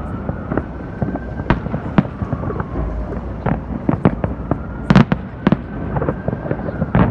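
Aerial fireworks shells bursting in an irregular series of bangs and pops, with the loudest pair of bangs about five seconds in.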